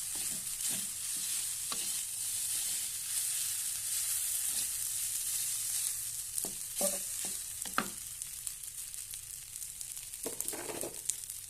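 Fried rice sizzling in a small nonstick pan as it is stirred, with scattered short scrapes and taps against the pan.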